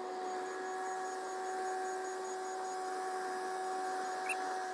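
Compact excavator running steadily as it carries a plastic septic tank, its engine and hydraulics giving a constant whine. There is a small click near the end.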